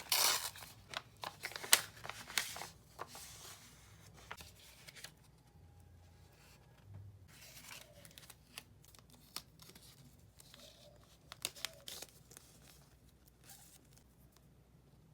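Wrapping being torn open and crinkled by hand, busiest and loudest over the first few seconds, then quieter rustling with light clicks and taps.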